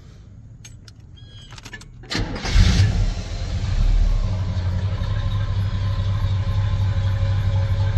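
1979 GMC Caballero Laredo's 350 V8 with four-barrel carburettor and custom dual exhaust being started: a few clicks, then a brief crank about two seconds in. It catches at once, flares up, and settles into a steady idle.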